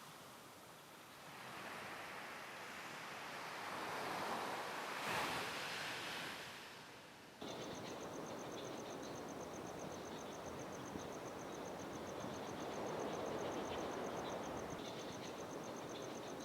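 Surf washing in, swelling and ebbing, until a sudden cut about seven seconds in. After the cut comes a steady, high, rapidly pulsing insect trill over a background of rustling noise.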